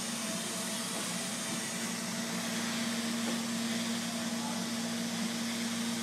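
Neato Robotics robot vacuum running across a hardwood floor: the steady whir of its suction fan and brush motor, with one constant low hum.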